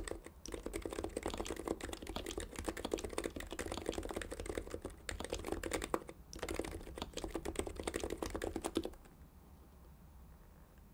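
Typing on a Heavy-9 Topre-style keyboard with Deskey sliders and rubber domes on a stainless steel plate, dampened with wool felt: a dense run of keystrokes with brief pauses about five and six seconds in, ending about two seconds before the end.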